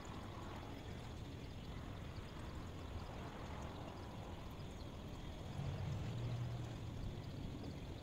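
Steady background noise, a low rumbling hiss with no distinct events, swelling louder for about a second and a half around five and a half seconds in.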